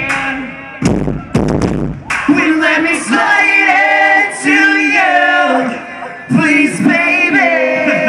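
Live band music through a concert PA, heard from the crowd: a few heavy beat hits in the first two seconds, then sung vocals holding long notes for the rest.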